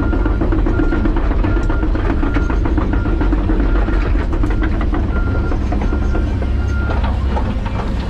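John Deere 130G excavator's diesel engine working hard, with a high beeping alarm repeating a little faster than once a second that stops near the end. Scattered clicks and cracks of roots and brush being worked sound over the engine.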